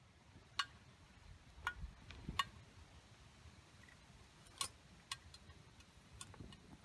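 Wood campfire crackling: a handful of sharp, irregularly spaced pops, about six over several seconds, over a faint steady background.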